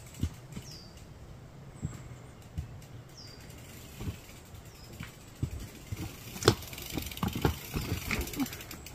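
Loaded mountain bike being pushed over a rocky trail: scattered knocks and rattles of the wheels and frame on the stones, busier in the second half. A few short high chirps come in the first half.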